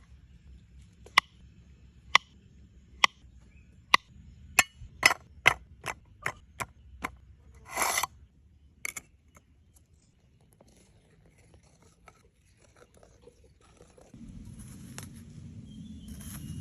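A series of sharp knocks, about one a second at first and then quicker, with a scraping sound about eight seconds in. A low rumbling noise comes in near the end.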